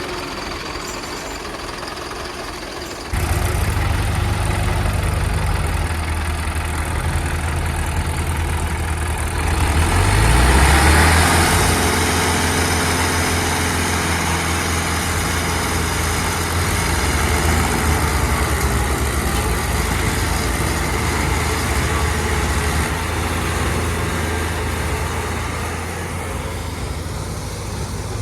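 Heavy diesel engine running steadily with a low drone. It gets abruptly louder about three seconds in, and revs up around ten seconds with a brief louder rush before settling back.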